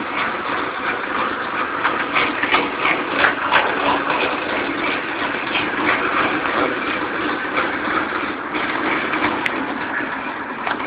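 Metal-turning lathe running: a steady machine drone with irregular rattling clicks over it.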